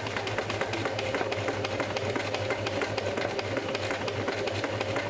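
Sewing machine running steadily: a low motor hum under a fast, even clatter of the needle.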